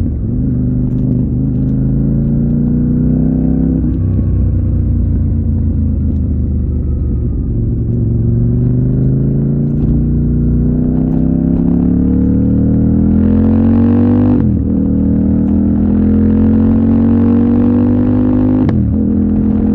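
CFMOTO 800NK's parallel-twin engine under way, its pitch easing down and then climbing as the bike accelerates, with a quick break in the note about two-thirds of the way in and again near the end, as the rider shifts gear.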